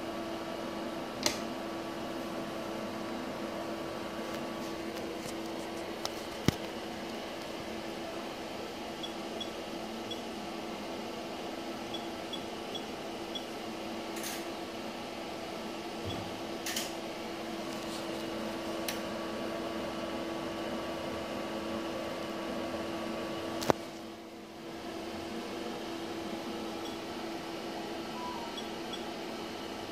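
Steady machine hum with one constant tone, broken by a handful of sharp clicks and taps, and dipping briefly about three-quarters of the way through.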